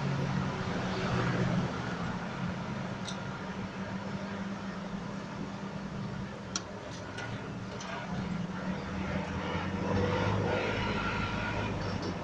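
Pickup truck driving slowly, heard from its open cargo bed: steady engine hum and road noise, with a few short clicks in the middle.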